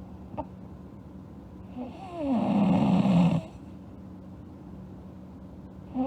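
A sleeping girl snoring. There is one loud snore about two seconds in, lasting over a second and dropping in pitch as it starts. The next snore begins right at the end.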